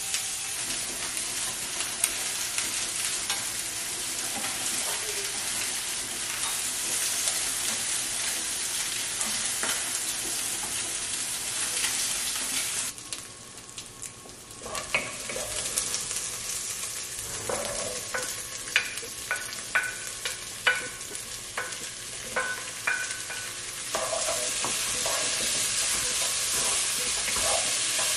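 Chicken drumsticks sizzling as they fry in a nonstick frying pan. About halfway the sound drops suddenly, then garlic and chilies sizzle in a pot with a run of sharp clicks and taps of a wooden spatula, and chopped onion and tomato sizzle louder as they are stirred near the end.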